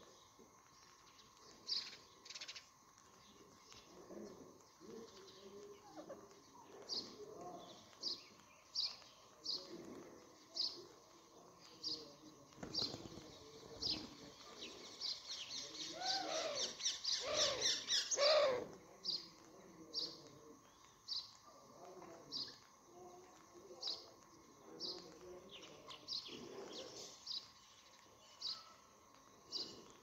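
Birds calling: short high chirps repeat about once a second, with a denser, louder burst of calls a little past the middle.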